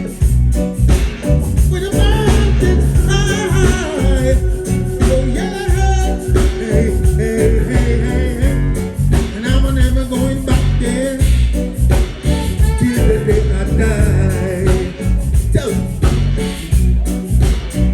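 Live reggae band playing, with heavy bass and steady drums under a wavering lead melody line.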